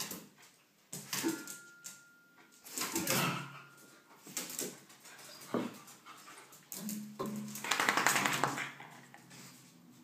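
Two dogs at play, one a podenco, whining and giving short play barks in separate bursts. The longest burst runs from about seven to eight and a half seconds in.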